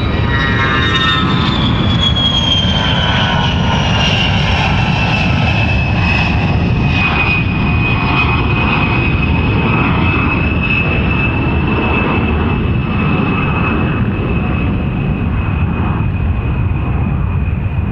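Airplane engine running: a deep steady rumble under a high whine that falls in pitch over the first few seconds, then holds steady.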